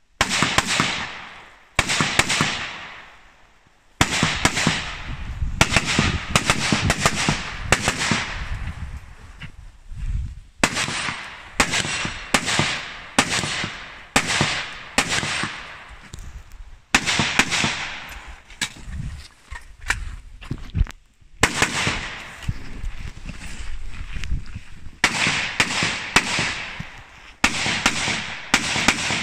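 Rifle shots fired in quick strings during a practical shooting stage, several to a second, with short pauses between strings as the shooter moves between ports. Each shot is followed by a short ringing tail.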